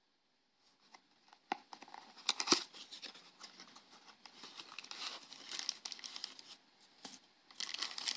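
A small cardboard toy box being opened by hand: sharp clicks as the end flap is pried open, then rustling and crinkling of the cardboard and the plastic wrapping inside, with a louder burst of crinkling near the end.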